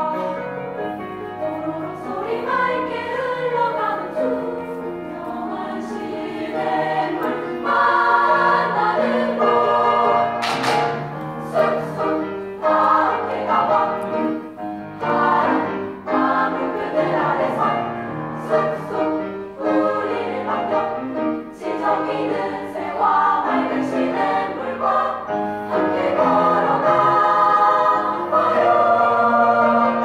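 High-school girls' choir singing a choral piece in several parts, growing louder about eight seconds in.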